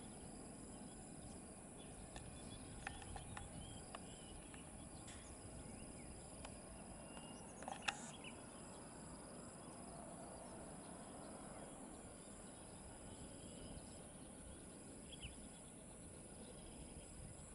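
Faint outdoor ambience: an insect trills in repeated stretches of about a second with short gaps, over low, even background noise, with a few small chirps and one short, sharp sound about eight seconds in.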